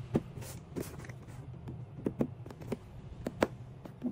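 Scattered light taps and knocks of hands handling a cardboard toy box on a tabletop, over a steady low hum.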